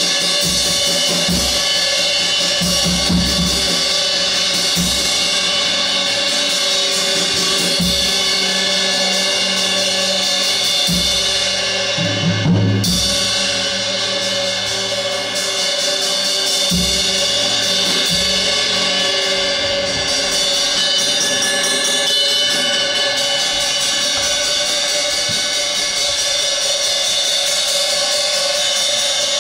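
Live improvised percussion: a continuous wash of ringing cymbals and metal, with scattered low drum hits and a quick cluster of low hits about twelve seconds in.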